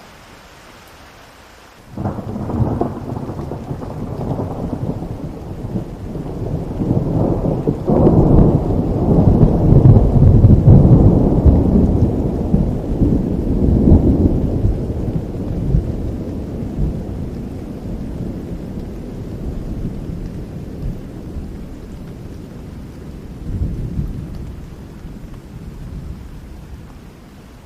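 Steady rain hiss, broken about two seconds in by a sudden clap of thunder. The thunder rolls on as a long, deep rumble, loudest a few seconds later, and slowly dies away near the end.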